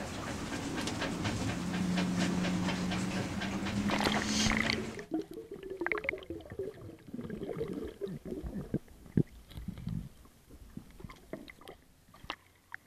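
A steady low hum under a hiss inside a sailboat's hull. About five seconds in it cuts to a quieter, muffled underwater sound beneath the hull, with scattered faint clicks.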